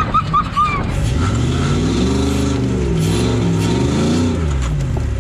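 Engine of a custom-built 4WD off-road buggy revving, its pitch rising and falling twice. A few short high-pitched chirps come in the first second.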